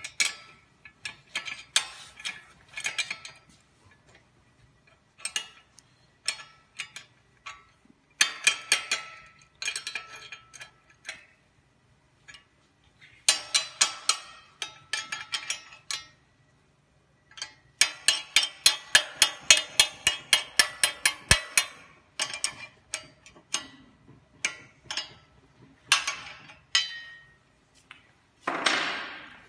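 Ratchet wrench clicking in quick runs of about six clicks a second while the bolts of a steel clamp bracket are tightened on a stainless steel pole, with pauses between runs. A brief swish near the end.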